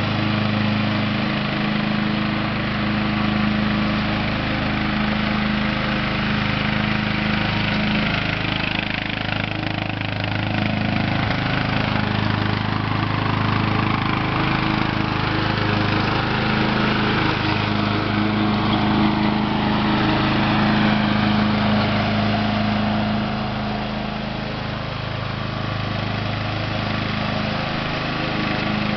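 Riding lawn mower's engine running steadily while mowing grass, a little louder as the mower passes close by in the middle.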